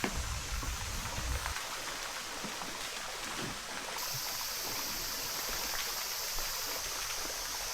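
Water lapping and trickling with scattered small splashes. A low rumble fades out in the first second and a half, and a steady high hiss starts abruptly about four seconds in.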